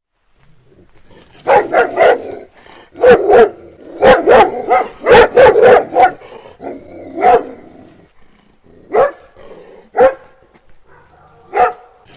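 A dog barking repeatedly in short, sharp barks, often two or three in quick succession at first, then single barks a second or more apart toward the end.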